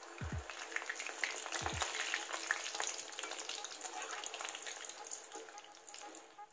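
Breadcrumb-coated potato balls deep-frying in hot oil in a wok: a steady crackling sizzle that fades near the end.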